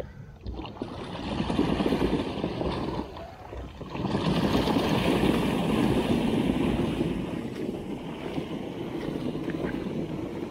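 Water splashing and churning as the tracks of a remote-controlled wooden tank drive through shallow creek water. The sound swells about a second in, dips briefly past three seconds, then carries on strongly.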